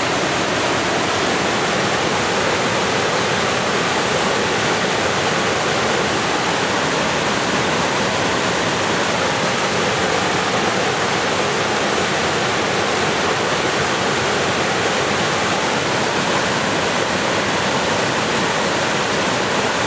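Waterfall pouring over a rock ledge and plunging into a pool below: a steady, unbroken rush of falling water.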